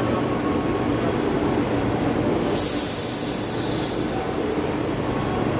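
Rome Metro train at an underground platform: a steady low rumble, with a brief high-pitched hiss about halfway through that falls in pitch.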